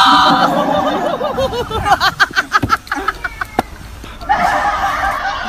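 Laughter, a quick run of short rising-and-falling 'ha' sounds about two seconds in, with loud voices before and after it.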